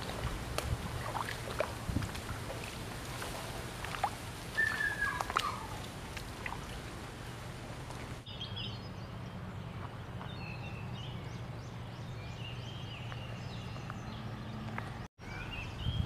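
Outdoor ambience: a steady rushing noise with scattered knocks and a few bird chirps. About halfway through it changes abruptly to a steady low hum with birds chirping more often.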